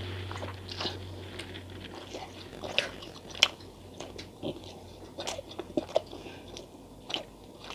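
Close-miked chewing of a soft, syrup-soaked rajbhog sweet, with irregular sharp, wet mouth clicks and smacks, the loudest about three and a half seconds in.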